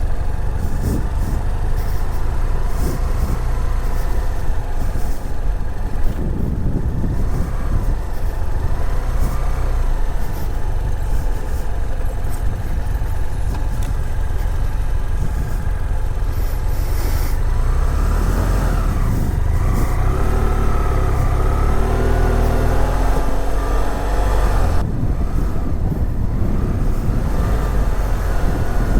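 BMW F700GS parallel-twin engine running as the motorcycle rides off, under a heavy low wind rumble on the helmet-mounted camera's microphone. The engine's pitch rises and falls between about 18 and 25 seconds in.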